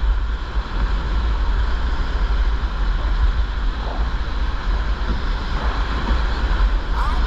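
Steady wind buffeting on an action camera's microphone, heavy and low, over the rush of sea water around a rowed surf boat.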